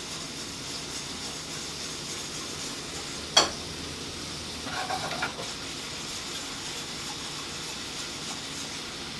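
Shrimp sizzling in a hot pan as they sauté, a steady hiss, with one sharp clack of a utensil on the pan about three seconds in and brief stirring noises a couple of seconds later.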